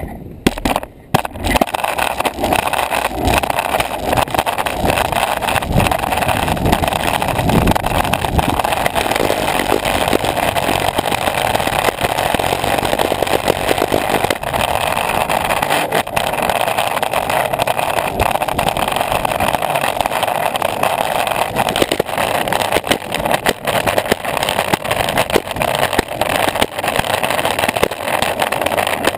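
Longboard wheels rolling over pavement close to the camera mounted on the board: a steady loud rumble with frequent small clicks and knocks from the road surface, after a brief dip about a second in.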